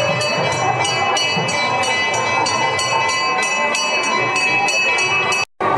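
Temple ritual bell rung rapidly and evenly, about five strokes a second, for an aarti lamp offering. The sound cuts off abruptly for a moment just before the end.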